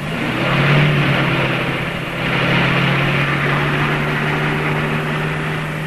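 A small boat outboard motor comes in at the start, its pitch climbing briefly, then runs at a steady hum as the motorboat speeds away.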